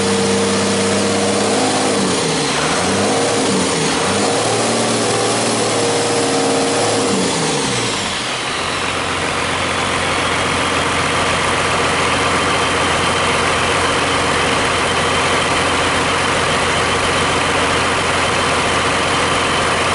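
Used Cummins 5.9L 12-valve inline-six diesel being run in on a test stand, its throttle worked by hand at the injection pump: the engine speed dips and climbs a couple of times. About eight seconds in, the revs and a high whine fall away and the engine settles into a steady idle.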